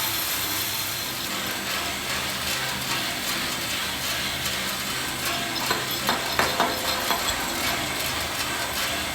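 20 kg drum coffee roaster running mid-roast: a steady machine hum and hiss from the motor, fan and burner, with beans tumbling in the drum. A few sharp clicks come about two-thirds of the way through.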